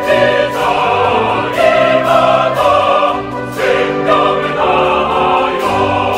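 Classical-style orchestral music with choral singing: sustained chords changing every second or so.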